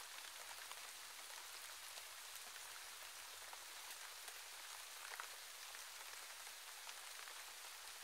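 Faint, steady light rain falling on leaves, with scattered drop ticks, one a little louder about five seconds in.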